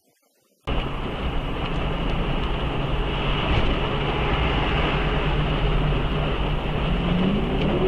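Steady running noise of a moving road vehicle, engine and road noise together, starting abruptly under a second in after near silence. Near the end a note rises in pitch as the engine speeds up.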